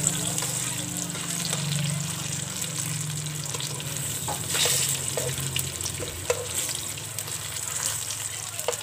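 Small-shrimp and moringa fritters shallow-frying in hot oil, sizzling steadily. A few light clicks come from metal tongs against the pan as the fritters are turned, over a low hum.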